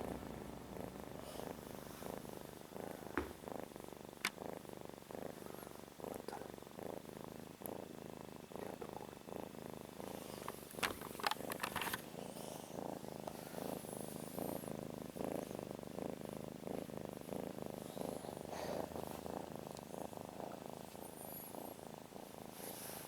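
Domestic cat purring steadily, a fast even rumble throughout. A few soft clicks and faint high chirps sound over it.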